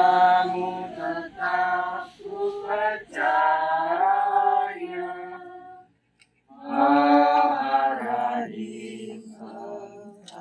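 Unaccompanied singing voices in long phrases with held notes. It stops briefly about six seconds in, then goes on and fades out near the end.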